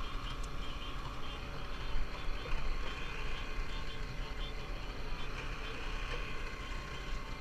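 Boat engine running steadily with a low drone, under a steady higher hum.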